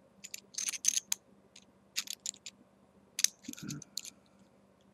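Small stainless-steel atomiser parts from a Kayfun Lite and a Russian 91% clone being handled and fitted together: a dozen or so light clicks and scrapes in small clusters, with a short soft low bump about three and a half seconds in.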